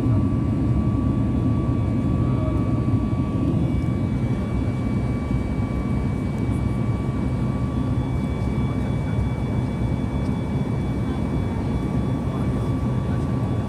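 Steady low rush of jet airliner cabin noise inside a Boeing 737 MAX 8 in flight shortly after takeoff, its CFM LEAP-1B engines and airflow blending into an even roar. Thin steady whining tones sit on top and fade in and out.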